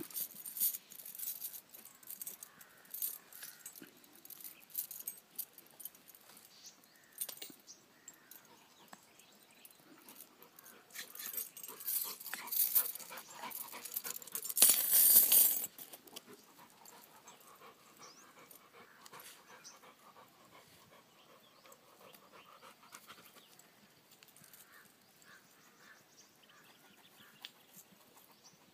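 A Labrador sniffing and snuffling along the ground, with scattered rustles and clicks as it noses through dry leaves and weeds. The loudest stretch is about halfway through, a burst of close, noisy snuffling and rustling, after which it goes quieter.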